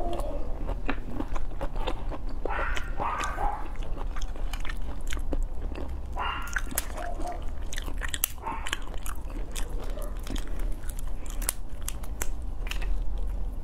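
The shell of a raw langoustine crackling and clicking as it is broken and peeled apart by hand, with some chewing in between.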